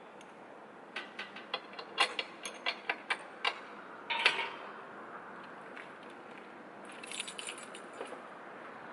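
Light handling clicks and clinks of small hard objects, over a steady low hiss. There is a run of sharp clicks early on, a louder clink with a brief ring about four seconds in, and a quick cluster of high clicks near the end.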